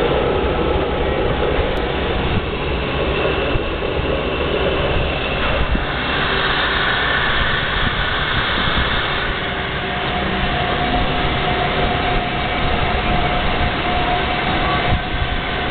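Kice VJO 16"x12"x12" rotary airlock valve running on its test run, its electric motor and drive turning the rotor in the empty housing. A steady mechanical running noise.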